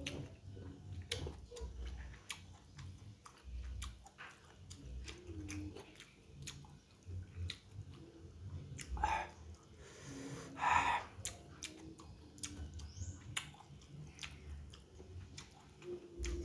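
Close-miked chewing of soft boiled instant noodles, with wet mouth clicks and lip smacks all through. Two louder rushing sounds come about nine and eleven seconds in.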